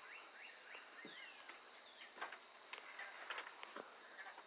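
Insects trilling in a steady, high-pitched chorus, with a run of quick rising whistled notes in the first second and a few faint clicks.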